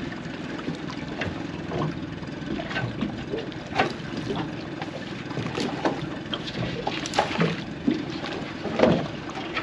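Small boat's outboard motor running steadily, with irregular knocks and rattles as a set net feeds out over the back of the boat.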